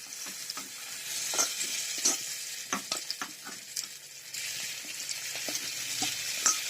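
Boiled rice-flour finger dumplings (anguli pitha) sizzling in hot oil with fried onion masala as they are stirred in the pan. The spatula clicks and scrapes against the pan again and again, and the sizzle grows louder about a second in.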